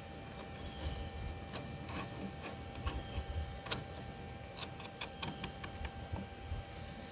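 Irregular light metallic clicks and taps from tooling being handled at a milling machine, most likely the drill being swapped for a 1/2 inch carbide end mill, over a faint steady hum.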